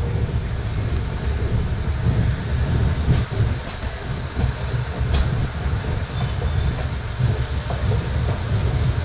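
Passenger train coach running along the line, heard from its open doorway: a steady low rumble of wheels on rails with a few faint clicks.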